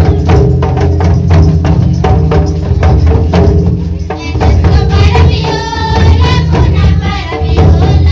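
Folk music with a quick, steady drum beat and a singing voice over it through the middle.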